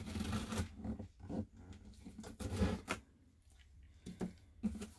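Faint scattered handling noises: short rustles and taps of hands on a cardboard box, with a quiet gap about three seconds in.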